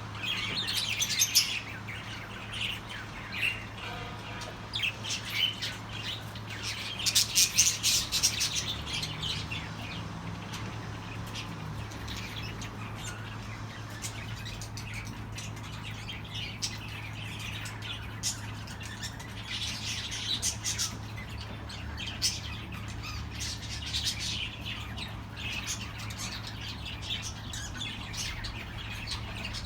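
Budgerigars chirping and squawking in a flock, with many quick overlapping calls and louder spells about a second in and around seven to eight seconds in, over a steady low hum.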